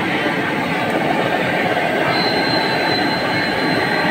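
Steady loud rushing noise, with a thin high whine coming in about halfway through.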